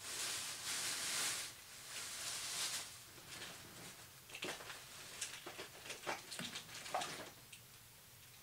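Rummaging for a replacement ink: a rustling hiss for the first three seconds, then a run of light clicks and knocks of small objects being moved and picked up.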